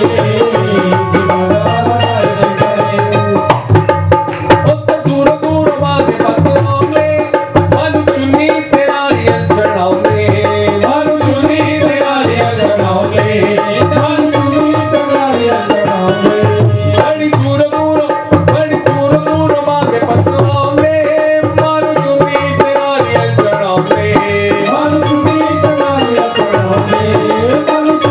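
Amplified Hindu devotional song (bhajan) sung by men into microphones, with a wavering melody over steady drum accompaniment.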